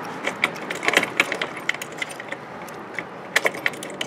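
Irregular light metallic clicks and jingles of a stainless bolt with its lock washer and flat washer being threaded by hand through a scooter exhaust's upper mounting bracket.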